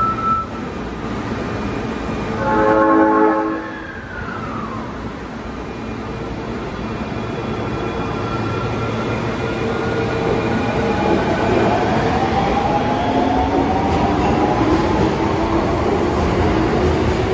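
Osaka Metro 21 series subway train sounding a one-second horn blast a few seconds in, then pulling away from the platform. Its motor whine rises steadily in pitch as it accelerates, over a growing rumble of running noise.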